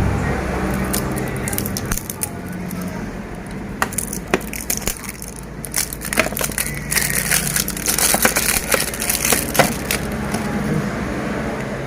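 Plastic packaging crinkling and crackling as a sealed parcel is unwrapped, with a dense run of sharp crackles in the middle, over a low steady hum.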